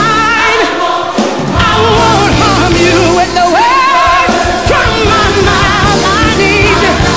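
Music with singing: held, wavering sung notes over a full instrumental backing.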